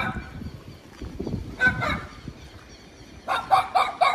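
A dog barking excitedly in short, high yaps: two about one and a half seconds in, then a quick run of four near the end.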